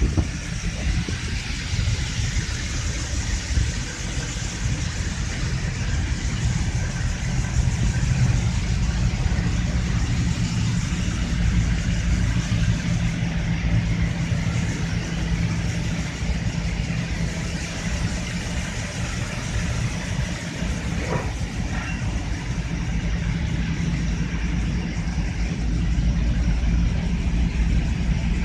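Steady machinery noise in a ship's engine room: a constant deep hum of running engines, with a broad rushing noise above it.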